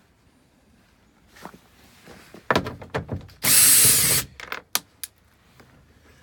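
A cordless drill/driver running in one short burst of under a second, backing out a door panel screw, amid scattered clicks and knocks of the screw and tool.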